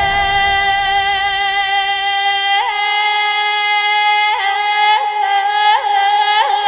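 Music: one long held sung note, very steady in pitch, with small quick upward flicks in pitch every second or so.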